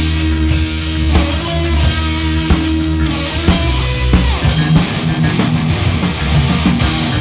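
Late-1980s skate punk rock song, with electric guitar, bass and drums playing at full level. Drum hits keep a steady beat under the held guitar and bass notes.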